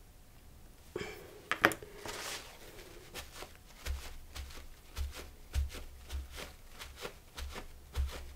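Paper towel crinkling, then dabbed and rubbed repeatedly on a gel printing plate: quick rustles with soft taps, about two a second, starting about a second in.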